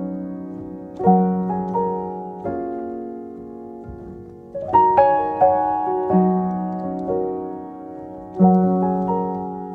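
Background piano music: slow, gentle chords struck and left to ring, with a fresh chord every few seconds, the opening of a song.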